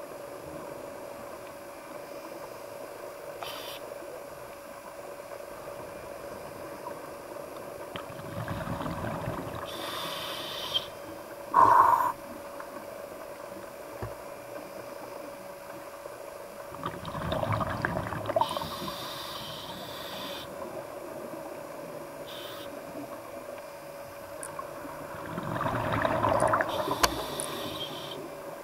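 A scuba diver breathing through a regulator underwater. About every eight seconds comes a burst of exhaled bubbles rumbling out, followed by the hiss of the next breath through the regulator, with one sharp loud sound about twelve seconds in.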